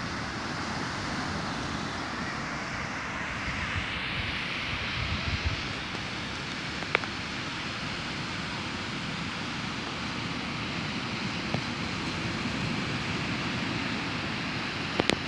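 Surf breaking on a sandy beach: a steady wash of waves that swells for a few seconds about four seconds in, with wind buffeting the microphone. A sharp click about seven seconds in and two more near the end.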